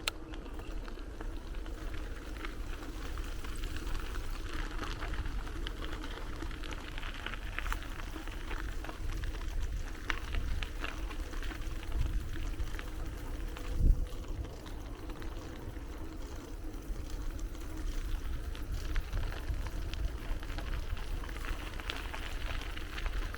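Ride-along bicycle sound: steady rumble of tyres rolling on the path with wind on the microphone, small scattered clicks and rattles, and a single louder thump about 14 seconds in.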